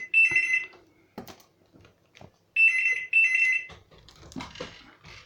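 Telephone ringing in a double-ring pattern: a pair of shrill, steady two-tone rings at the start and another pair about two and a half seconds later. Faint knocks and rustling follow near the end.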